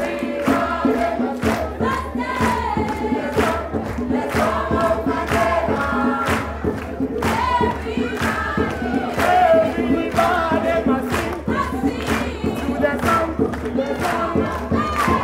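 A group of voices singing an upbeat song in chorus over a steady beat, with crowd noise mixed in.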